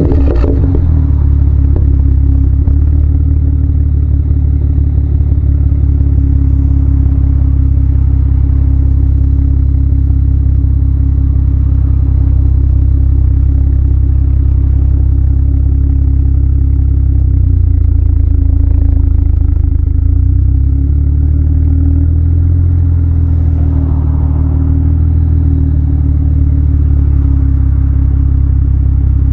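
BMW 135i's N54 twin-turbo straight-six idling steadily through an aFe Mach Force XP cat-back with a straight pipe, just after a cold start. A deep, even exhaust drone, its pitch wavering slightly about two-thirds of the way through.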